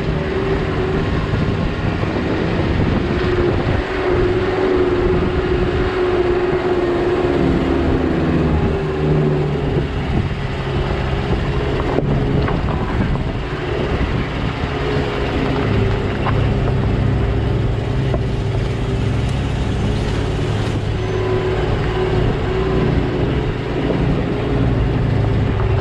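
Car driving along a rough concrete-and-dirt road: a steady engine hum with tyre and road noise.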